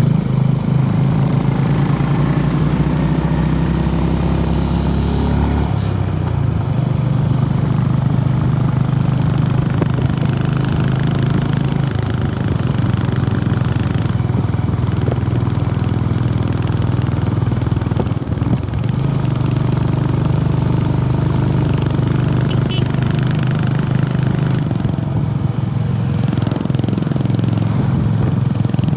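Honda CB 350RS's air-cooled single-cylinder engine running steadily under way. Its note shifts about six seconds in, dips briefly around two-thirds of the way through, and changes again near the end.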